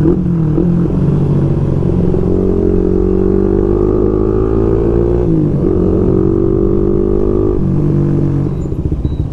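Motorcycle engine accelerating through the gears. Its pitch climbs steadily, drops at a gear change about five seconds in, climbs again, and drops again about seven and a half seconds in.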